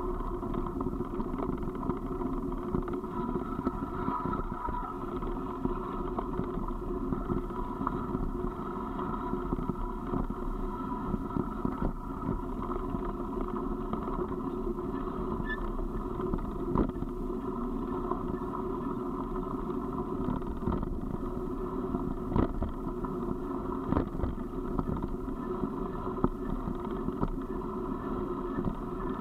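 Steady rumble of a vehicle rolling down a gravel track, with a few sharp knocks from bumps in the surface, the loudest about two-thirds of the way through.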